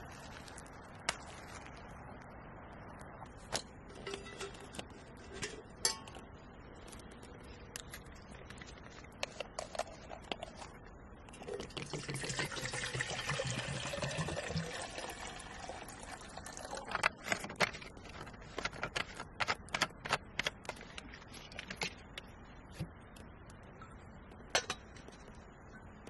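Water poured from a bottle into a small metal kettle, running for about three seconds. Before it come sharp snips of scissors cutting juniper twigs, and after it a run of clicks and clinks.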